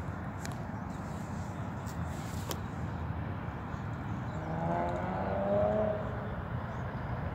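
Steady low rumble of city traffic. Past the middle, a motor vehicle's engine note rises and falls for about two seconds and is the loudest sound.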